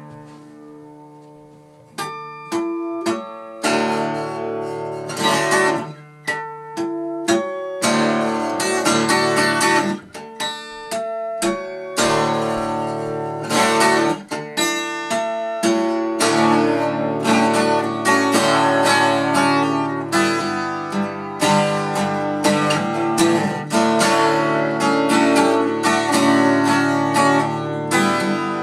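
Solo acoustic guitar: a few separate chords rung out at first, then steady, rhythmic strumming of chords that fills in and grows denser about halfway through.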